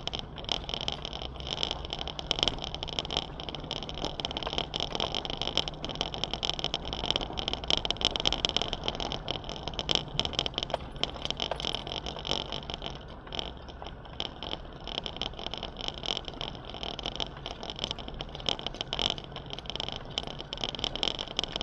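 Off-road 4x4 driving on a rough mountain track: the engine runs steadily under a constant crackle and rattle of stones under the tyres.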